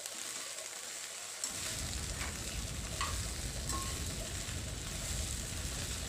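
Chopped okra sizzling as it sautés in a little oil in a kadai, stirred with a spatula that scrapes and clicks against the pan several times. A low rumble comes in about a second and a half in.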